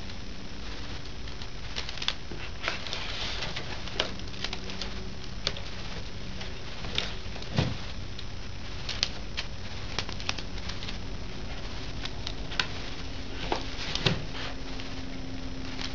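Cardboard packaging and a plastic power adapter being handled and fitted together: scattered light taps, clicks and rustles, a few sharper knocks among them, over a steady low background hum.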